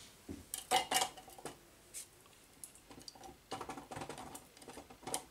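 Chunks of wax handled and dropped into a small metal tin can, making light clicks and clinks against the tin in two clusters, about a second in and again near the end.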